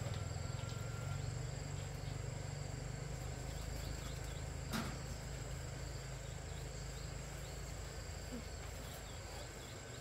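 Insects chirping faintly over a low steady hum, with one sharp click about halfway through.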